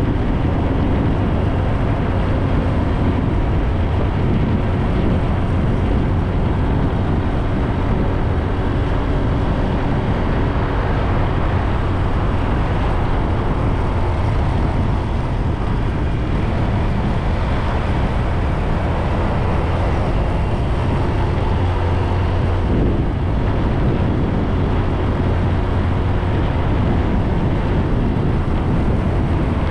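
Steady wind rush on the microphone with road rumble from a bike riding along an open road, even and unbroken throughout.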